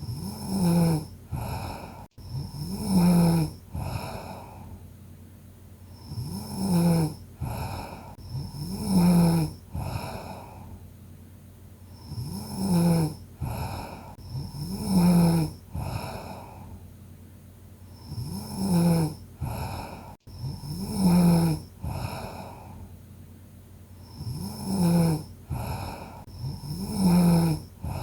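A person snoring in their sleep. Each breath cycle is about six seconds long: a short snore, then about two seconds later a longer, louder one.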